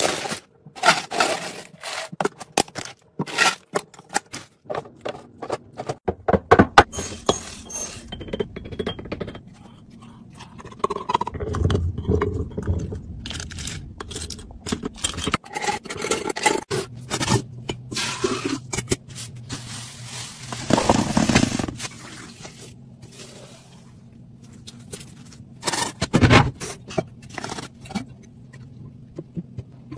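Close handling noise of packaged food and containers: plastic snack bags crinkling and rustling, then scrapes and taps as food is scooped into glass jars and glassware is handled, changing abruptly several times.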